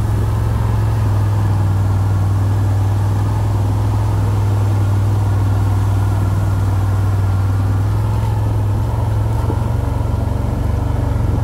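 A quad bike's (ATV's) engine running steadily while riding, a constant low drone that eases slightly about eight seconds in.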